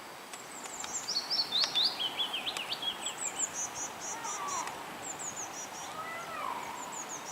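Small songbirds singing: quick high chirps and trills, one phrase stepping down in pitch in the first few seconds, then repeated short notes, over a steady outdoor hiss.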